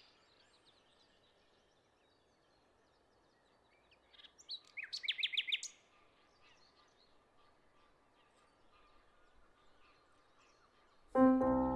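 A wild bird singing a quick run of short, descending whistled notes about four seconds in, with scattered faint chirps over quiet outdoor background. Music starts abruptly near the end.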